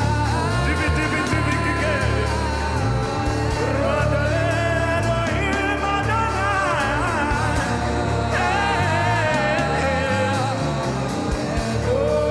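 Live gospel worship music: a singer's drawn-out, gliding vocal lines over a keyboard and drums, with a steady bass underneath and a light, regular cymbal tick.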